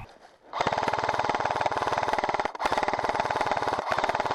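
Airsoft M249 (a G&P M249 SF electric gun) firing long full-auto bursts: a rapid, even rattle of shots. It starts about half a second in and breaks off briefly twice, about two and a half seconds and about four seconds in.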